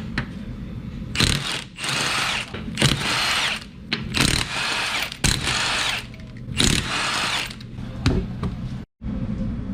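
Power impact wrench spinning off a wheel's lug nuts in a series of short, loud bursts.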